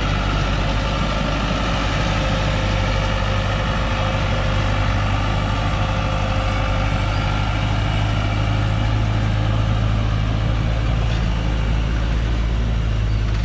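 Loaded logging truck's diesel engine running steadily at low speed as the truck crawls through mud, with a deep, even hum.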